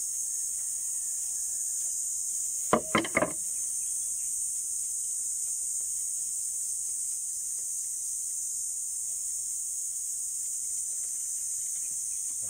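Steady high-pitched insect chorus throughout. About three seconds in, a quick run of three or four sharp clicks from the plastic phone-holder mount being handled and fitted together.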